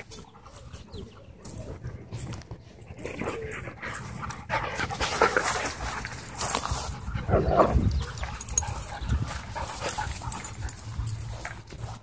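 A husky crying and whining frantically while other dogs wrestle over it, with scuffling in the grass; the cries are loudest from about four to eight seconds in.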